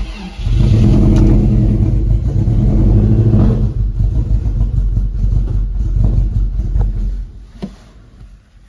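Freshly installed Toyota 3RZ four-cylinder engine on a start attempt: it catches and runs loudly for a few seconds, weakens, and dies out about seven seconds in. The engine has its number 1 injector unplugged, so it fires on only three cylinders.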